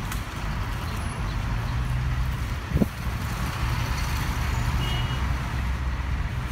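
Street traffic with a heavy vehicle's engine running, a steady low rumble, and a brief thump about three seconds in.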